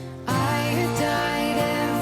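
Background music: a held chord fades, then about a quarter second in a louder phrase begins, with a gliding melody over sustained notes.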